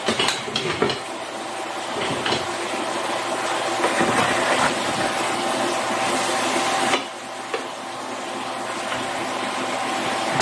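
Sliced portobello mushrooms sizzling in melted butter in a pan, with a few knocks of a utensil against the pan near the start. The sizzle drops noticeably about seven seconds in.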